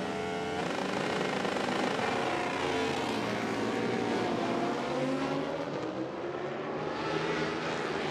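A pack of superbike race motorcycles revving hard and accelerating together, many engine notes rising in pitch at once and climbing again through the gears.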